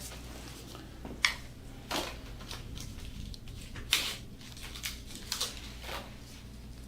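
Several short rustles and clicks of hands handling things, the sharpest about a second in and again near four seconds, over a steady low hum.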